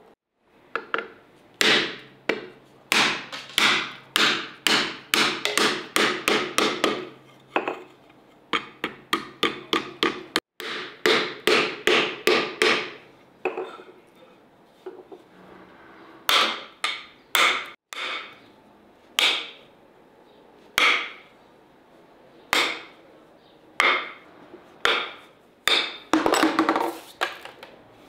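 A long series of sharp knocks, like something being struck. The knocks come quickly and regularly, about two or three a second, for roughly the first half. After a short pause they come more slowly, about one every second or so.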